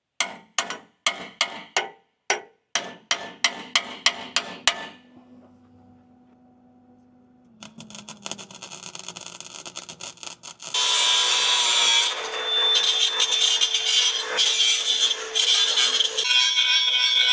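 Hammer blows on the steel handle of a bandsaw sawmill, about a dozen sharp ringing strikes over the first five seconds as it is bent into shape. A loud continuous harsh noise follows in the last third and is the loudest part.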